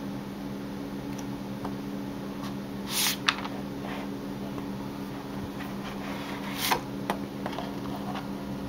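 Pages of a large art book being turned: two short paper swishes, about three seconds in and again near seven seconds, each followed by a light tap, over a steady low hum.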